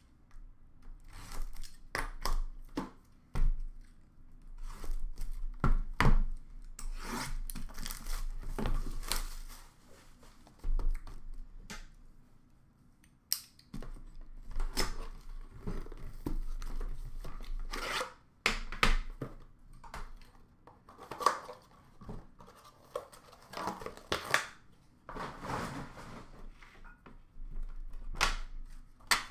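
A sealed hockey card box being opened by hand: irregular tearing, rustling and rubbing of wrapper and cardboard, with small clicks and taps as the box and cards are handled, and a quieter pause about ten seconds in.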